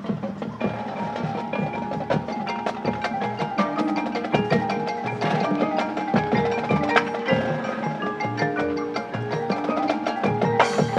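High school marching band playing a busy passage: many quick percussion strikes over held pitched notes.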